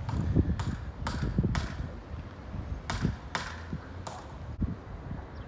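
A string of sharp knocks and taps with dull thuds under them, several coming about twice a second, then fewer after about halfway.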